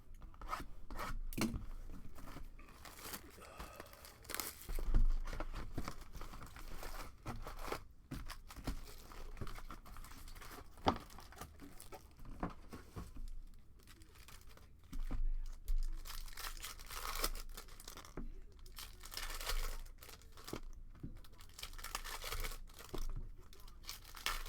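Trading-card pack wrappers from a 2020 Bowman baseball hobby box being torn open and crinkled, in irregular crackling bursts with sharp clicks as cards are handled.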